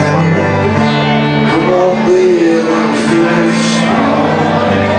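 Acoustic band music led by guitar, with a wavering melody line over it.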